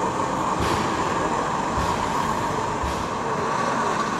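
OO gauge model locomotive running on the layout, a steady mechanical hum with soft knocks about once a second.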